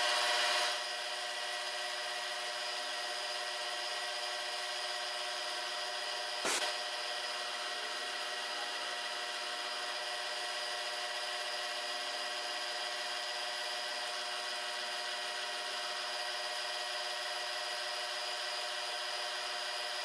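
Mini milling machine spindle running with a 0.140-inch end mill cutting into a brass part: a steady whine with several steady tones, louder for about the first second, and a single sharp click about six and a half seconds in.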